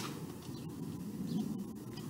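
Outdoor ambience: a steady low rumble with a few faint bird chirps.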